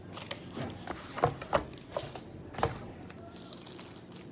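A white cardboard box being handled and the wrapped phone stand pulled out of it: four or so sharp knocks and clicks in the middle, with light rustling of the packaging.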